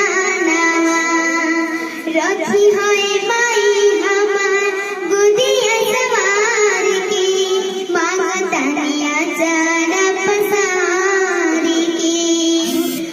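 A young girl singing a melody in a high voice, with wavering, ornamented notes and slides between pitches.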